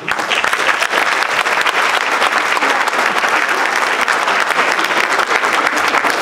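A large audience applauding: dense, steady clapping that breaks out suddenly and keeps going at an even level.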